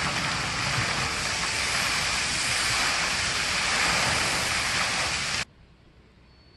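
Fountain jets spraying and splashing into the basin: a steady rush of water that cuts off suddenly about five and a half seconds in.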